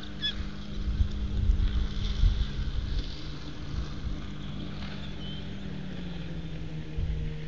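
Motorboat engine running on the surrounding water, a steady hum whose pitch drops slightly about six seconds in, with wind buffeting the microphone and a couple of short high chirps.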